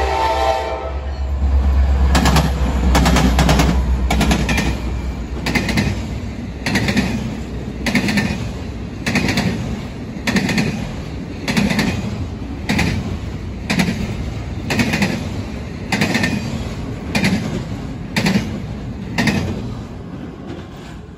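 EMD SD70ACU diesel-electric locomotive passing: its horn ends just under a second in, and the engine's heavy low rumble follows. Then double-stack intermodal well cars roll by with regular double clacks of their wheels, about one pair a second, growing fainter near the end.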